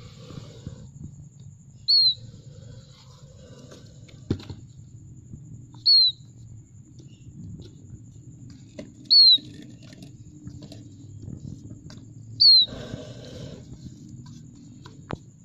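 A plover chick giving a short, high peep that dips slightly in pitch, four times about three to four seconds apart, over a faint low hum.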